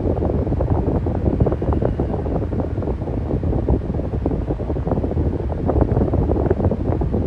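Electric fan running steadily, its air stream buffeting the microphone: a low, even rumble with a rapid, uneven flutter.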